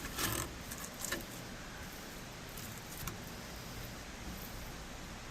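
Rainbow trout being filleted on a board: a few light clicks and knocks in the first second or so, then mostly a steady background hiss.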